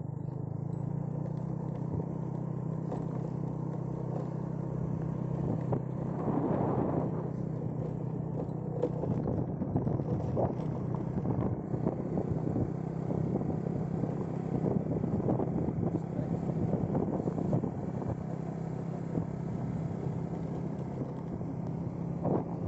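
A vehicle engine running at a steady speed while on the move, with road and wind noise over it, a little louder about six seconds in.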